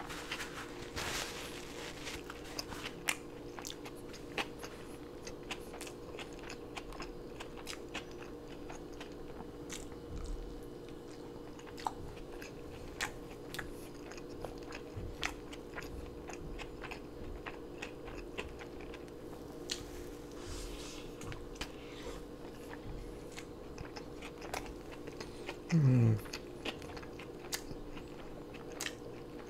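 A person chewing a soft beef-tongue taco close to the microphone: many small wet clicks and smacks of the mouth, over a steady low hum. About 26 seconds in there is one short, louder pitched sound that falls in pitch, like a throaty 'mm'.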